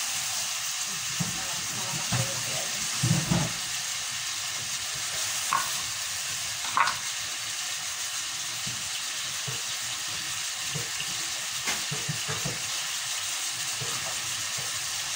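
Chicken pieces sautéing in oil with ginger, garlic and onion in a saucepan, giving a steady sizzling hiss. A few light knocks come in the first half.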